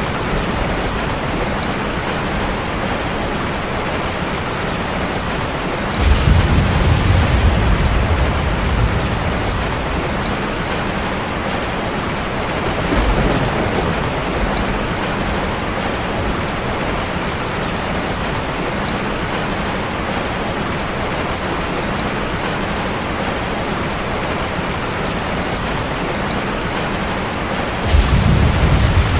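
Steady rain with thunder rolling in over it: a loud rumble about six seconds in, a smaller one a few seconds later, and another near the end.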